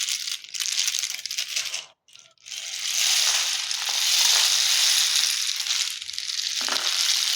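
A homemade rain stick, a paper tube lined with toothpicks and holding popcorn kernels, is being tipped. The kernels trickle through the toothpicks in a steady rushing hiss that stops briefly about two seconds in, then runs again.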